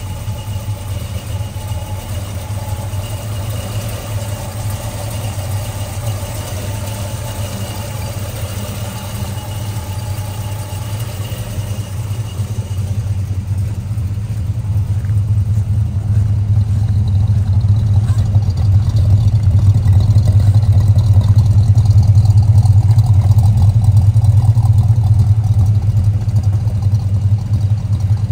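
1972 Ford Fairmont XA's 351 V8 idling steadily with a low, even note. It grows louder from about halfway, up to its loudest at the twin exhaust tips.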